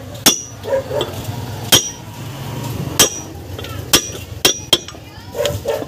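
A hammer strikes a steel tube drift about six times at an uneven pace, driving a wheel bearing into a Suzuki van's rear hub. Each blow is a sharp metallic clank with a brief ring.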